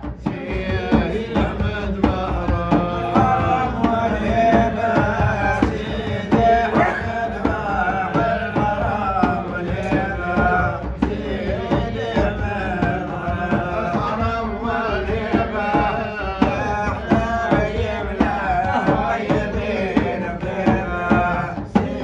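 Sufi madh music: drums beating a steady rhythm under a wavering melodic line, between sung verses.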